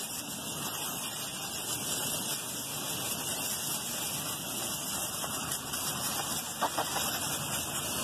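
A hose's coil-gun nozzle sprays a steady jet of water onto the fins of a rooftop unit's dirty evaporator coil. This is the pre-rinse before the coil cleaner goes on.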